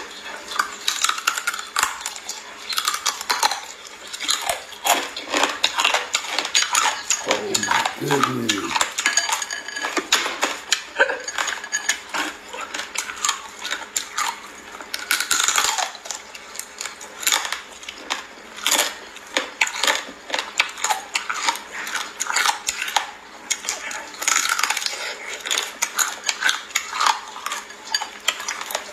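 Rapid, close-up crunching and crackling of small live crabs' shells being bitten and chewed, with sharp clicks and clatter of the crabs against a glass bowl.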